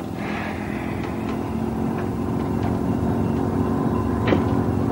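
A speedboat's engines run with a steady drone that grows a little louder as the boat is driven. A sharp click comes near the end.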